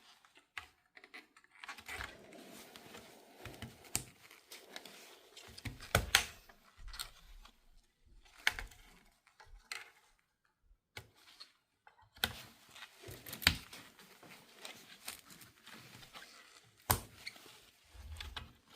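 Handling noises: scattered sharp clicks and knocks with rustling in between, the loudest knocks about six, thirteen and seventeen seconds in.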